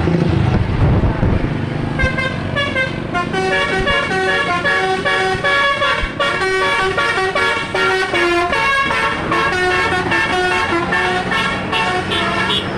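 Bus 'telolet' multi-trumpet horn playing a fast tune of short notes that step up and down in pitch, several sounding together. It starts about two seconds in, after a low engine rumble.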